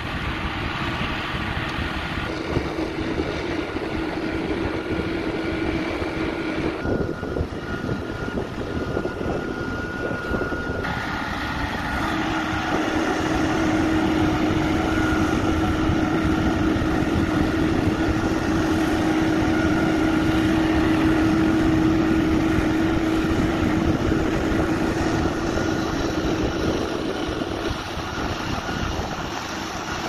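A CIFA truck-mounted concrete pump and the transit mixer feeding it, running as a steady mechanical drone with a held tone. The sound shifts abruptly a few times.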